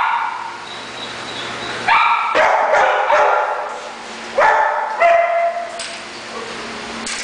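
Dog barking in two loud bouts, the first about two seconds in and the second about four and a half seconds in.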